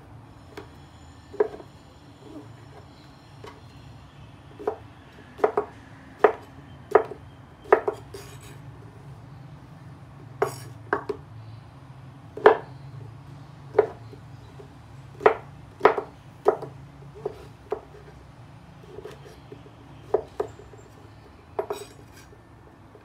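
Chef's knife cutting a king oyster mushroom on a wooden cutting board: irregular sharp knocks of the blade striking the board, about one a second, some much louder than others.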